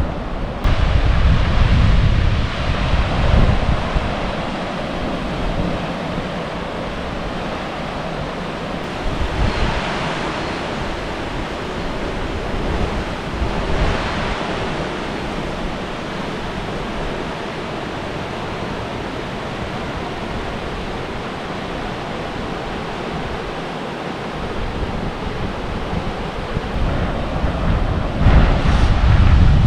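River water rushing in a steady hiss, with wind buffeting the microphone in a low rumble for the first few seconds and again near the end.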